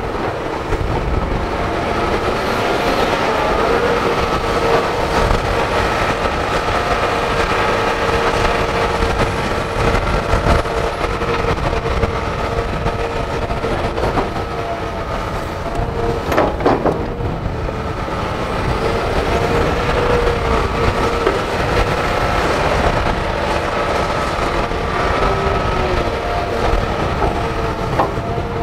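Hitachi crawler excavator's diesel engine running under load as it digs, with a steady hydraulic whine that bends in pitch now and then and a low rumble. A sharp clank sounds about sixteen seconds in.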